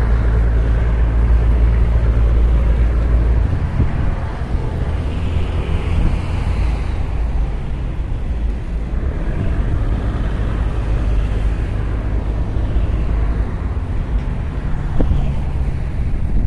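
Steady low rumble of a ferry's engine with wind buffeting the microphone; the rumble is heavier for the first few seconds, then eases slightly.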